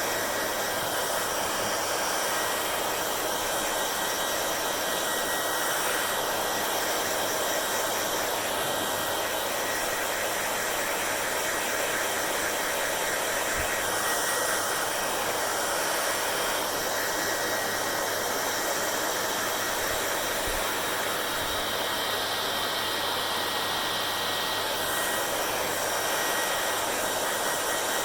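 Hair dryer running continuously, a steady rushing hiss of air with faint steady tones, its character shifting slightly a few times as the airflow is moved about.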